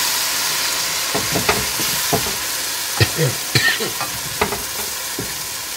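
Masala sizzling in hot oil in a large aluminium pot, with a wooden spoon scraping paste from a metal bowl and stirring, knocking against the bowl and pot several times.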